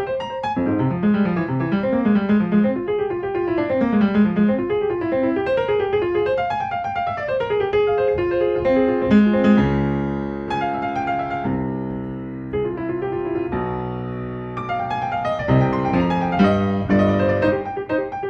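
Solo piano background music: flowing melodic runs, then slower held chords about halfway through before the runs return.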